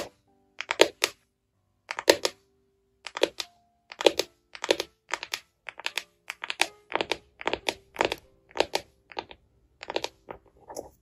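Fingernails and fingertips tapping and clicking on a small clear plastic case: sharp taps in quick irregular clusters of two to four, with short silences between.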